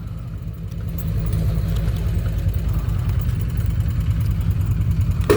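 Vehicle engine idling steadily with an even, fast low rumble.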